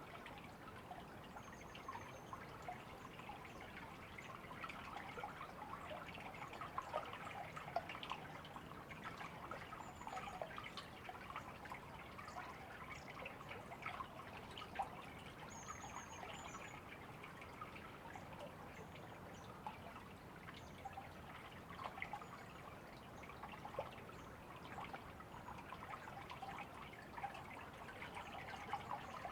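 River water flowing: a steady, faint rush of water full of small splashes and gurgles.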